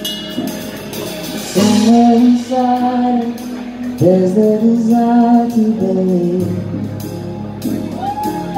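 Live music: a male singer holds two long sung notes, each about two seconds, over the band's accompaniment, and starts another near the end.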